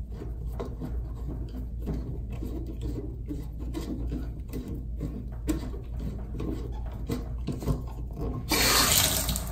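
Screwdriver turning the set screw of a chrome shower-valve lever handle: light metal scraping and clicking with each turn, over a steady low hum. Near the end comes a short, louder rush of noise.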